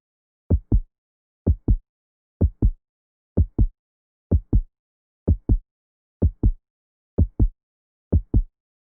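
Heartbeat sound effect: steady double thumps (lub-dub), about one beat a second, nine beats in all, low and deep with dead silence between beats.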